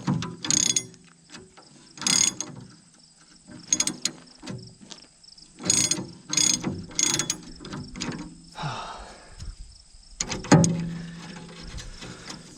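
Socket ratchet wrench clicking in short bursts as it is swung back and forth on a skid steer bucket-tooth bolt, about six bursts over the first seven seconds. About ten and a half seconds in there is one loud, sharp knock.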